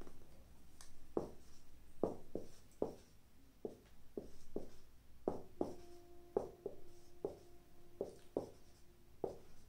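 Whiteboard marker writing: a run of short, sudden strokes and taps, about two a second, as letters and bonds are drawn.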